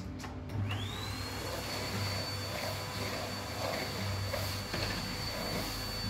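Vacuum cleaner switched on: its motor whine rises quickly about half a second in, then holds at a steady high pitch over a steady rush of air.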